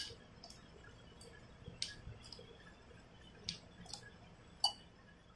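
Plastic spatula stirring chopped vegetables in a glass mixing bowl, knocking against the glass in a few sharp light clicks at irregular intervals.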